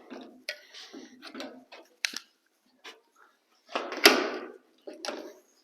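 Handling noise as a clamped, glued-up wood panel is unwrapped: irregular rustling, clicks and knocks, with one louder longer burst about four seconds in.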